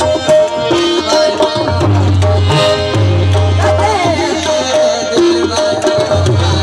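Sindhi kafi music: tabla strokes over held harmonium notes, with a wavering melody line about four seconds in.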